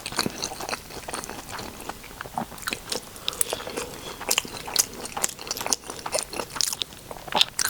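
Close-miked chewing and biting with many small, irregular wet mouth clicks and smacks: a person eating eggs and buffalo-sauced air-fried cauliflower.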